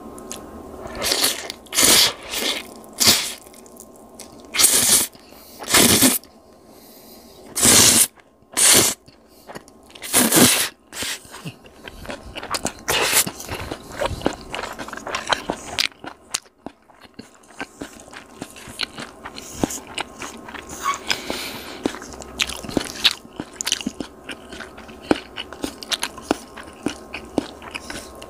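Close-miked eating of cold spicy noodles mixed with raw shredded cabbage: about nine loud, short crunching bites in roughly the first ten seconds, then quieter chewing with many light, quick clicks of chopsticks against the earthenware bowl.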